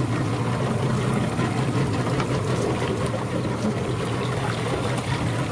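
Boat's engine running steadily, a constant low hum.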